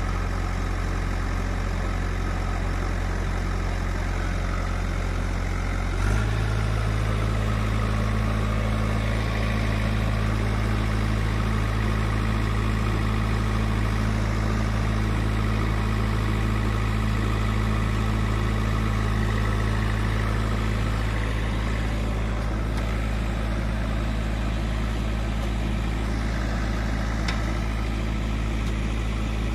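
Diesel engine of a JCB backhoe loader running steadily while its arm braces against a loaded sugarcane trailer to push it out of a rut; about six seconds in the engine note steps up and runs a little louder.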